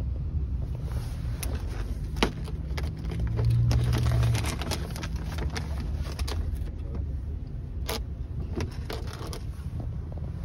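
Phone microphone rubbing and knocking against a blanket: a string of scrapes and sharp clicks, over the steady low rumble of the moving vehicle. The rumble swells briefly about three to four seconds in.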